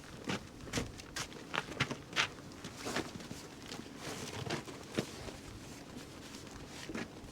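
A scatter of irregular sharp clicks and knocks, as of tools and metal parts being handled, with the loudest knocks about two seconds and five seconds in.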